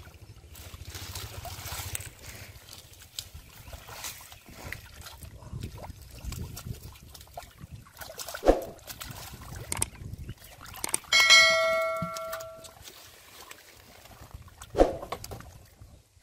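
Hands sloshing and squelching through shallow muddy water and mud, with two sharp splashes. About eleven seconds in there is a bell-like metallic ring that fades over a second and a half.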